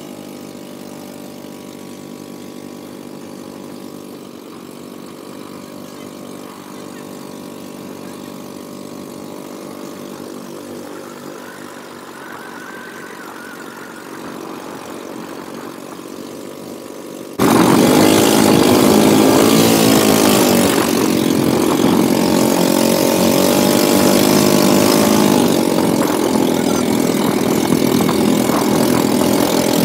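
Motorised outrigger boat's engine running steadily at cruising speed. About 17 seconds in it becomes suddenly much louder, with a rushing noise over it.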